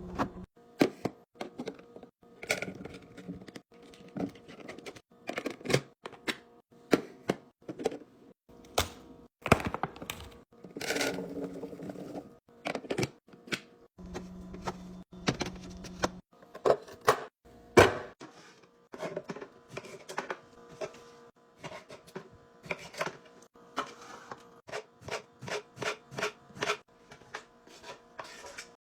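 Food containers, jars and packaging being handled and set into a refrigerator: a steady run of sharp plastic and glass clicks, taps and knocks as items are placed and lids snapped shut. A brief low hum sounds about halfway through.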